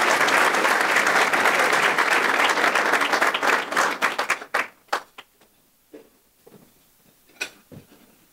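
Audience applauding, the clapping thinning to a few scattered claps about four to five seconds in and then dying away.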